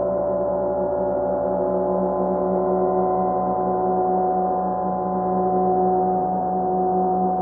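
50-inch Oetken Sound Creation gong played with friction mallets (Flumies), giving a steady drone of several held overtones with no strikes.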